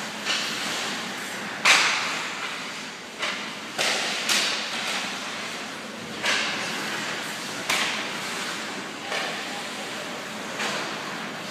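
Hockey pucks and sticks knocking sharply, echoing around an ice arena: about nine irregular cracks over a steady background hiss, the loudest a little under two seconds in.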